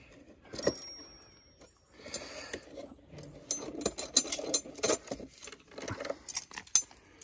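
Quick metallic clicks, rattles and scrapes of a spring-loaded squirrel kill trap being worked open and pulled out of its wooden tree-mounted box, growing busier from about two seconds in.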